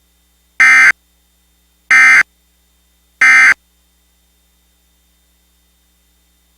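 Emergency Alert System end-of-message (EOM) signal: three short, identical bursts of SAME digital data tones, each about a third of a second long and just over a second apart. They mark the end of the emergency alert.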